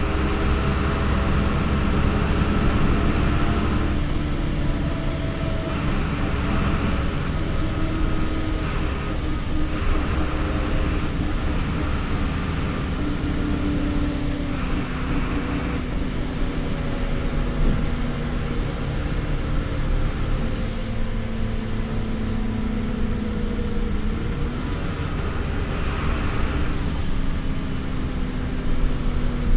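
Jelcz M121M city bus under way, heard from inside the passenger cabin: a steady engine and road rumble, with the engine's hum slowly rising and falling in pitch as the bus speeds up and slows.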